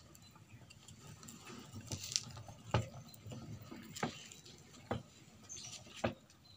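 Rusty old rice thresher's spiked wooden drum spinning on its chain drive, giving a faint rattle with a sharp click or knock about once a second.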